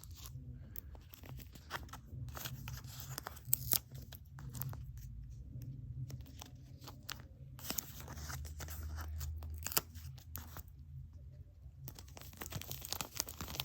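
Small plastic toy pieces and their wrapping being handled up close: scattered light clicks and crinkles.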